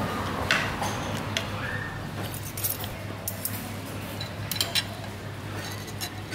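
Tableware clinking: short, sharp clinks of cutlery against dishes and glass, scattered irregularly.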